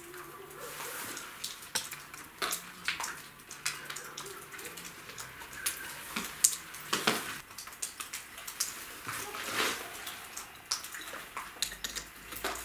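Nuts being tightened with a wrench on threaded rods that draw a fresh brick arch together: many scattered metallic clicks and ratchety scrapes, with a couple of longer scraping sounds.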